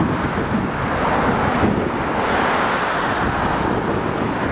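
Wind buffeting the microphone, a steady rushing noise.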